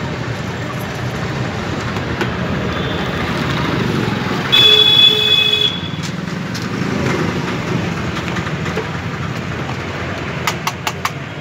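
Road traffic noise with a vehicle horn honking once, a steady tone lasting just over a second, about halfway through. A few quick clicks come near the end.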